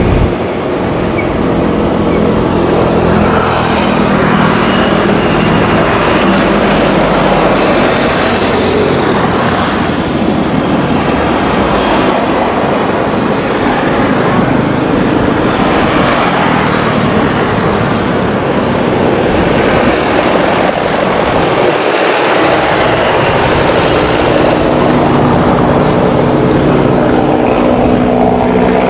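Helicopter in flight, a steady loud engine and rotor noise, with a more humming tone coming through near the end as it draws closer.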